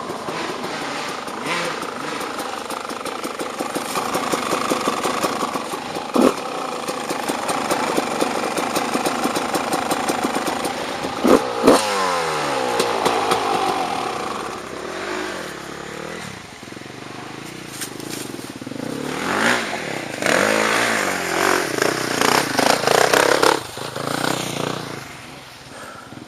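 Off-road dirt bike engine revving up and down while riding a trail, with a few short sharp knocks and louder quick bursts of throttle in the second half.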